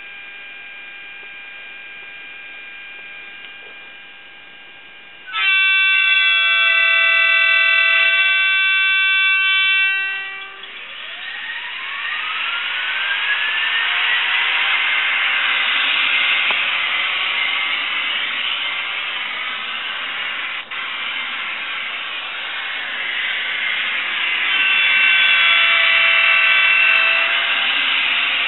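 Electric-train sounds played by a LokSound V4 Micro sound decoder through the Kato TGV model's small speaker. A steady idle hum gives way to a loud horn blast about five seconds in, lasting several seconds. A rising motor whine follows as the train sets off and settles into a running noise, and a second horn blast sounds near the end.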